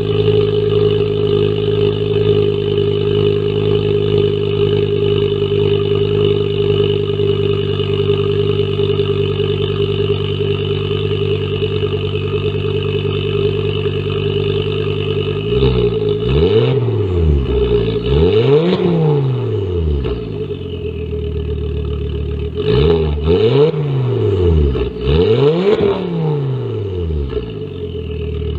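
Ford Focus ST's turbocharged 2.5-litre five-cylinder engine idling steadily, still cold. About halfway through it is revved four times, each rev rising and falling back to idle.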